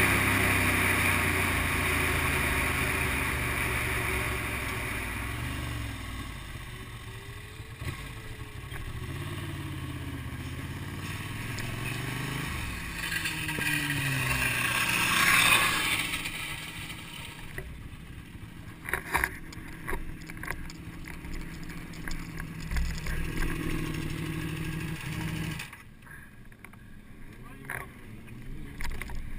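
Motorcycle engine running and easing off as the bike slows, with a rush of wind noise building to a peak about halfway through. A lower engine sound carries on under scattered sharp clicks and knocks in the second half, and the level drops suddenly near the end.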